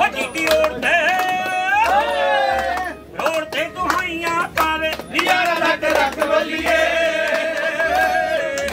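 A man singing a Punjabi folk song to a tumbi, with the men around him clapping along.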